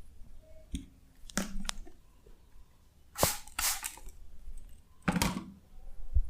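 Hands striking and rubbing skin in a face and head massage: a handful of sharp, unevenly spaced smacks, each followed by a short rubbing sound, the loudest a little after three seconds and again after five.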